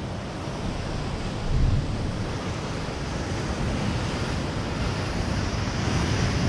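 Ocean swell washing and breaking against the granite rocks below, mixed with wind buffeting the microphone; a steady rush, briefly louder about a second and a half in.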